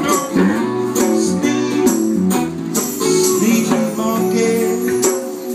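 Live acoustic band playing: acoustic guitars strummed in a steady rhythm, with a bending lead melody line over them.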